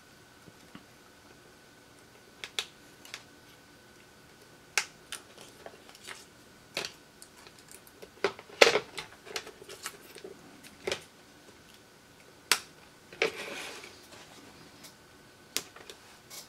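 Irregular sharp clicks and light knocks from small tools and phone parts being handled on a repair bench, with a short rustle about two thirds of the way through. A faint steady high tone runs underneath.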